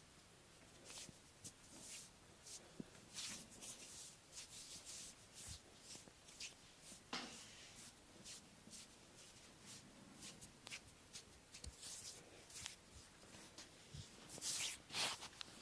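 Faint massage sounds of hands rubbing and sliding over skin: a run of short soft swishes with a few light taps, and one louder swish near the end.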